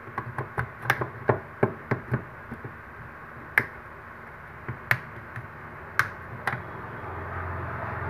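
Plastic snap-fit clips of a Jio Phone F271i's casing clicking loose as the housing is pried apart by hand: a quick run of about ten sharp clicks in the first few seconds, then a few scattered clicks.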